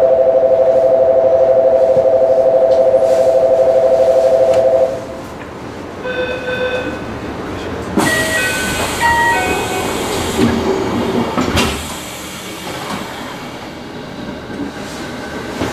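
Loud two-tone electronic warning with a fast pulse, sounding steadily for about five seconds: the door-closing warning of a train about to depart. After it come a short chime, a sudden hiss and a few short beeps over a steady rumble.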